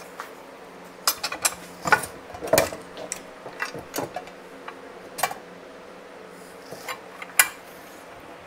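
Metal tools and parts clinking and clanking as they are handled and set down: a string of irregular sharp clinks starting about a second in, with the last one near the end.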